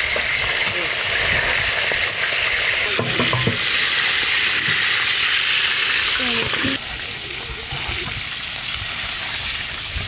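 Tilapia pieces deep-frying in oil on a large flat iron pan, a steady loud sizzle, with metal spatulas scraping against the pan now and then as the fish is turned. The sizzle gets quieter about seven seconds in.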